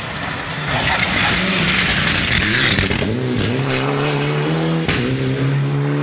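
Rally car engine approaching at speed and getting louder, its pitch dipping and climbing again through gear changes, with a couple of sharp cracks, then running at steadier revs.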